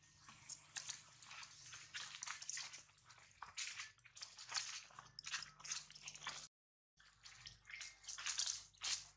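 Irregular crunching of footsteps on dry leaves and twigs, with a brief total dropout about two-thirds of the way in.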